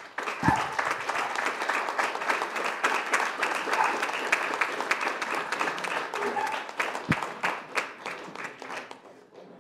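Audience applauding, a dense patter of clapping that fades away near the end. Two brief low thumps, one about half a second in and one about seven seconds in, are the handheld microphone being knocked or set down.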